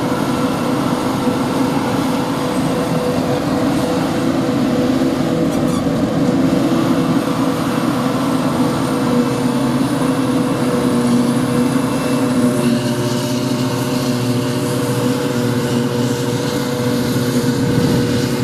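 Claas Jaguar 960 self-propelled forage harvester running under load while chopping grass for silage: a steady heavy mechanical drone with a constant whine over it.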